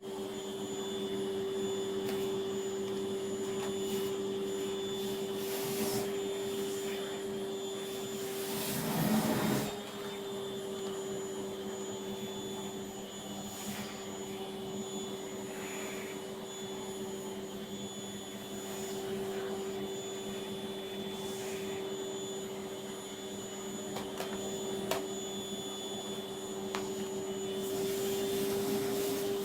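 Vacuum cleaner running steadily with a constant motor hum, with a louder rushing surge about nine seconds in.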